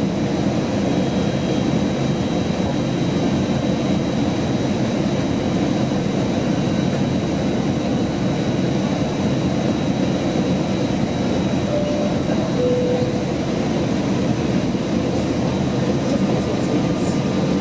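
Steady in-flight cabin noise of an Airbus A321 airliner on descent: an even rush of airflow and engine hum, with a faint, high, steady whine above it.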